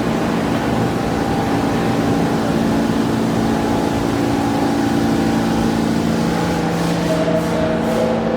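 Inside a New York City subway R68A car running between stations: a steady rumble of wheels on the track with a low hum from the train's motors. A higher tone joins near the end.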